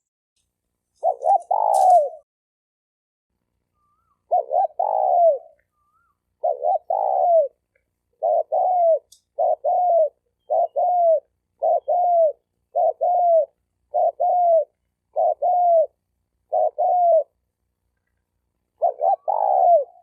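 Male spotted dove cooing. A couple of longer coo phrases come first, then a regular run of short two-part coos about once a second, and another longer phrase near the end.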